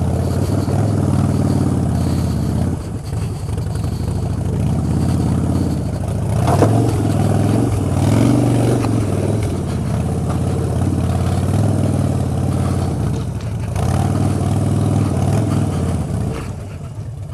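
Harley-Davidson Street Bob's V-twin engine pulling the bike slowly up a steep, rocky track, the engine note rising and falling with the throttle. There is a clatter about six and a half seconds in.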